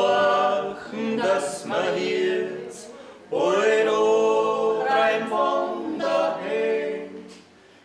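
Alpine folk Dreigesang of two men and a woman singing a cappella: two held, slow phrases with a short break about three seconds in, the last one fading out near the end.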